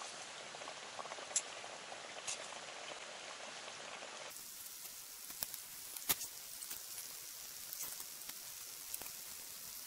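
Pot of oden simmering on a camp stove, a steady faint hiss, with scattered light clicks of chopsticks against a metal cup.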